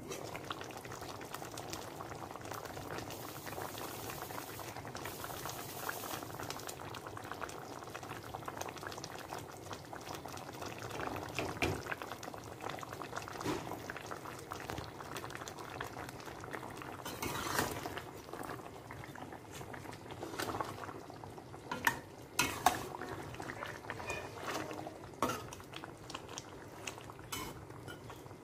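Braised spare ribs, bamboo shoots and mushrooms bubbling steadily at a simmer in a stainless steel pan. In the second half a few sharp metal clinks come from a spatula against the pan as it is stirred.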